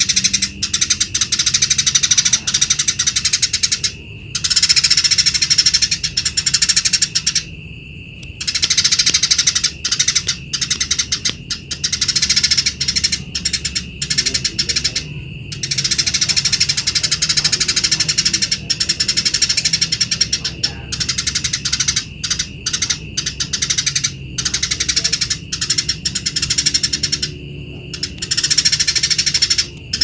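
Eurasian tree sparrow singing in long bouts of rapid, unbroken chattering, broken by several short pauses, over a steady high tone.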